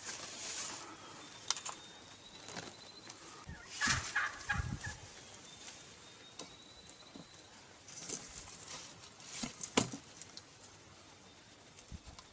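Wild turkey gobbling, with a loud gobble about four seconds in and more calls around eight to ten seconds. Faint thin high tones sound between the calls.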